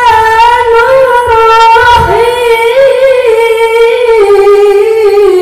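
A male qari chanting Qur'an recitation (tilawah) in the melodic, drawn-out style, amplified through a handheld microphone. He holds long high notes with small ornamental turns, with a brief break about two seconds in.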